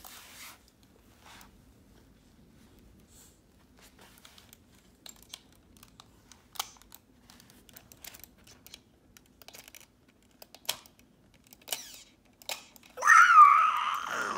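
Scattered small clicks as a toddler fiddles with a computer mouse in his hands, then a loud, gliding toddler vocalization near the end.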